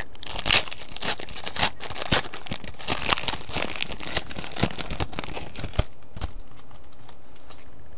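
Trading card pack wrapper crinkling and tearing as it is ripped open, a dense run of crackles that dies down about six seconds in.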